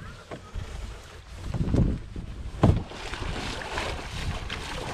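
Wind buffeting the microphone at the water's edge, with two dull knocks about a second apart, the second the loudest. Water splashing in the shallows takes over in the second half.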